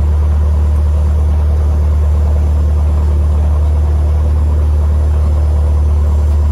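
Cessna 150M's Continental O-200 four-cylinder engine running steadily: a loud, unchanging low drone.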